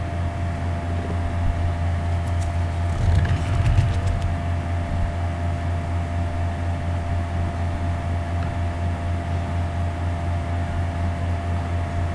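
Steady low machine hum with a faint steady high tone and hiss, from a computer working under a rendering load. A few light clicks come about three seconds in.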